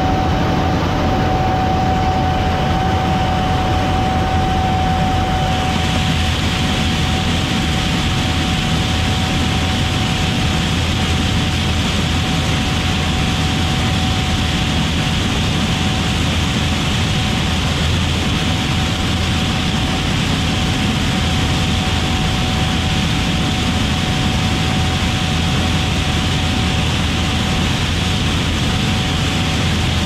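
Gleaner S97 combine running steadily while harvesting corn: a continuous machinery drone with a low rumble and a steady whine.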